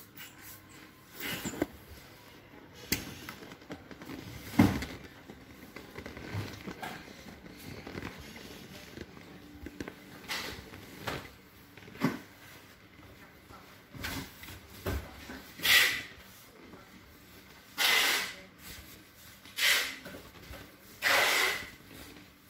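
Handling of an inflated vinyl kiddie pool: scattered light knocks and rubs, then four short, loud swishes about two seconds apart near the end.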